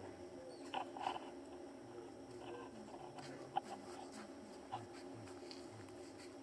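Faint, steady background hum with a few short, soft chirps and clicks: a pair about a second in, a sharp click in the middle and another chirp near the end.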